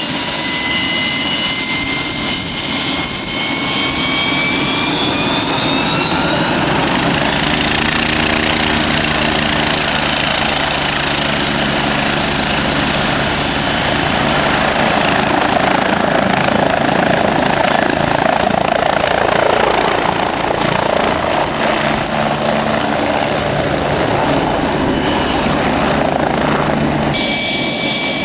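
Air ambulance helicopter running close by: loud, steady engine and rotor noise. A high turbine whine rises for a few seconds, then falls back.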